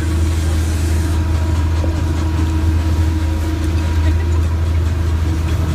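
A small engine running steadily with a low, even drone.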